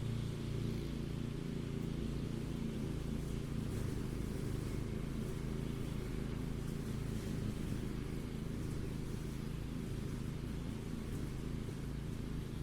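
Mower engine running steadily at a constant speed.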